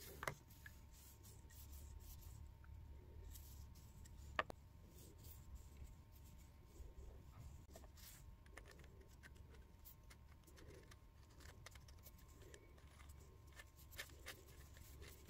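Faint handling of a tap reseating tool's greased steel parts by gloved hands: scattered light clicks and soft rubbing, with sharper clicks about a quarter second and about four seconds in, over near silence.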